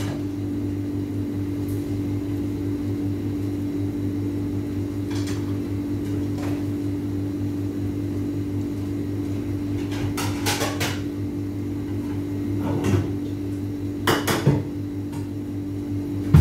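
Oil sizzling as sesame-coated binangkal dough balls deep-fry in a wok, over a steady low hum. A few light knocks and clatters come about ten and fourteen seconds in.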